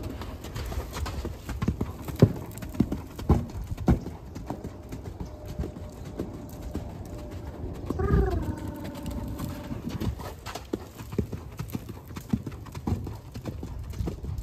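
A horse cantering on dirt footing: a loose, uneven run of dull hoofbeats, loudest in the first few seconds. About eight seconds in there is a brief pitched vocal sound.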